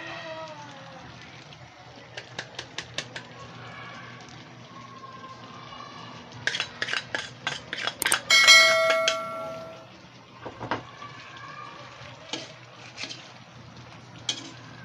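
A metal spoon clinking against a metal cooking pot: a quick run of taps about two seconds in, then a longer run of clicks and one loud clang that rings for about a second. More scattered taps follow over a low steady hum.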